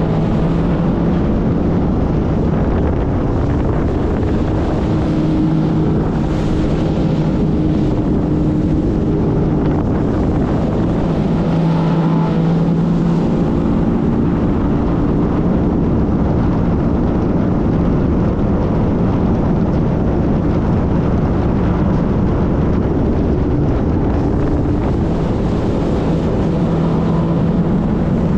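Jet ski running steadily at speed: an even engine drone under a dense rushing noise.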